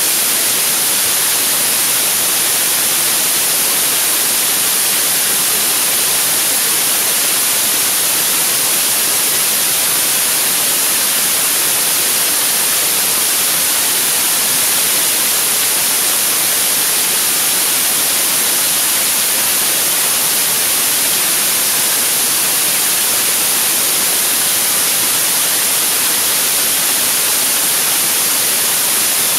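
75-tonne-thrust kerosene and liquid-oxygen rocket engine firing steadily on a test stand. It is heard as a loud, even, unbroken hiss, strongest in the high range, with little low rumble.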